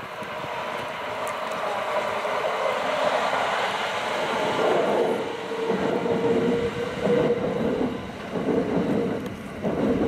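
Kintetsu limited express electric train passing: its running noise swells, stays loud with a steady tone through the middle, and comes in uneven surges near the end before dropping away as the last car goes by.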